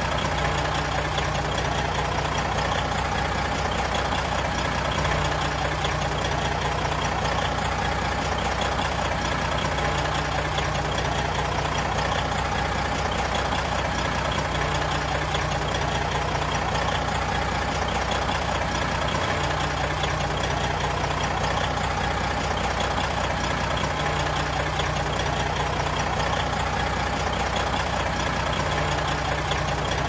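Semi-truck's diesel engine idling steadily, an even low drone with a constant higher tone above it.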